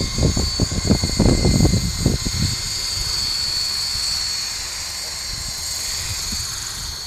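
ramo COAX2012 electric coaxial model helicopter in flight: its Z-Power Z30 brushless motor and two contra-rotating three-blade rotors give a steady high whine. A gusty low rumble comes and goes over the first two and a half seconds, then eases off.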